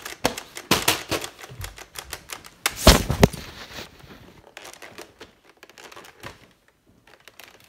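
Plastic clicking and clacking of a handheld Nerf foam-dart blaster being handled, with a louder knock about three seconds in. The clicks thin out in the second half.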